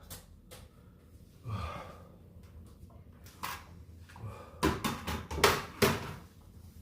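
A short exhale, then a quick run of sharp clicks and knocks in the second half, several in close succession.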